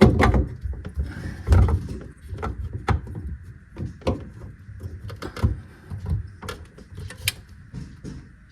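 Irregular knocks, clunks and clicks as a garbage disposal unit and its drain fittings are handled and fitted under a kitchen sink, with a couple of louder thumps near the start.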